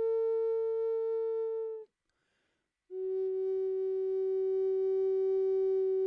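Flute playing slow, steady long tones: a held note stops about two seconds in, and after a pause of about a second a lower note is held.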